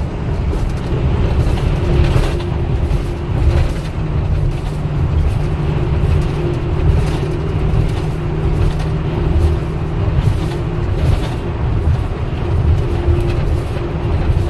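A road vehicle driving in traffic: a steady, loud low rumble of engine and road noise.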